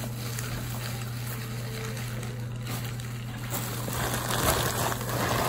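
Clear plastic bag and disposable plastic gloves crinkling and rustling, getting louder from about three and a half seconds in, over a steady low hum.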